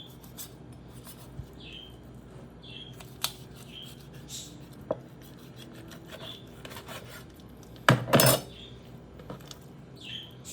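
Kitchen knife and utensils clicking and scraping against a cutting board and dishes while a raw whole chicken is cut up, with a louder clatter about eight seconds in.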